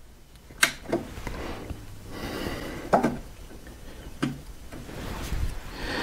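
A few sharp clicks and knocks, the first the loudest, with light rustling of handling between them.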